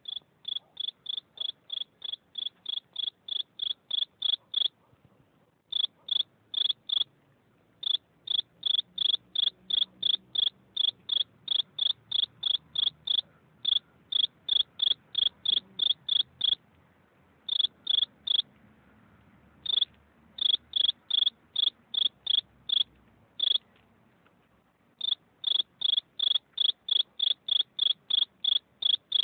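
A cricket chirping: a steady train of short, high-pitched chirps about three a second, broken now and then by pauses of a second or so.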